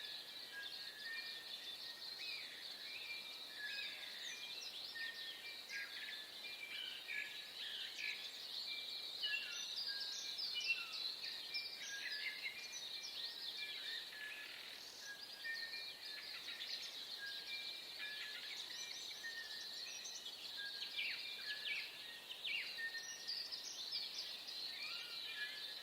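Dawn chorus of many birds singing and calling at once: a dense, continuous stream of short chirps and whistles, with brief level whistled notes repeated again and again.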